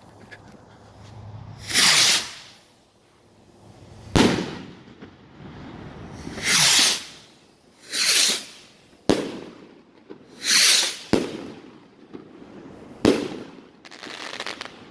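Pyro Demon 16 oz sky rockets going off. Several short hissing whooshes are mixed with four sharp bangs a few seconds apart as the rockets break overhead.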